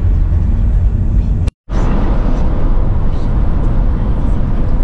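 Road and engine noise inside a moving car's cabin, a steady low rumble, broken by a moment of silence about a second and a half in.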